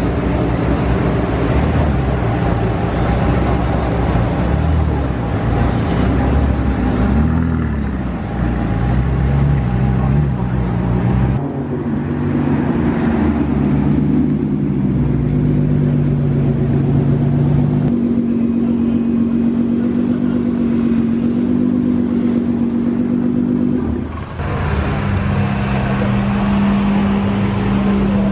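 Sports car engines and exhausts as cars drive off one after another, among them a Lamborghini Gallardo Superleggera pulling out and a Maserati GranTurismo passing. The engines rev up and down over the first ten seconds, then hold a steady drone for about twelve seconds before an abrupt change near the end.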